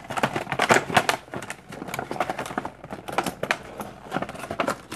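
Hot glue gun's trigger clicking and ratcheting in quick, irregular runs as it is squeezed to feed the glue stick and push glue out.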